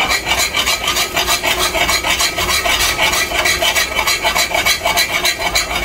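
Spoon stirring and scraping chicken around the bottom of a pot of browned sugar and hot oil, a fast, even run of scraping strokes, several a second, to lift off what sticks to the bottom.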